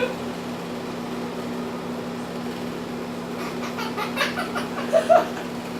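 Steady air-conditioner hum; about halfway through, a pet bird starts a run of short calls, with two louder ones near the end.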